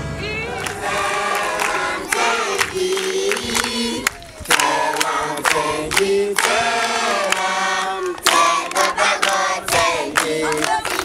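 A group of children singing together in chorus, with hand clapping throughout.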